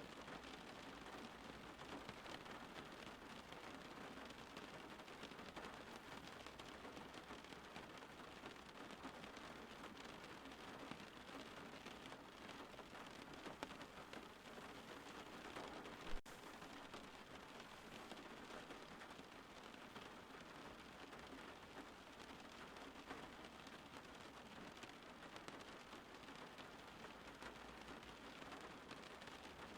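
Steady rain falling, a faint even hiss, broken once about halfway through by a single brief click.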